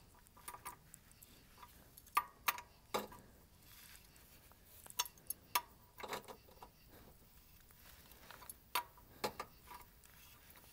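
Faint, scattered clicks from a wrench turning the oil filter housing back in, some ringing briefly, in irregular short runs.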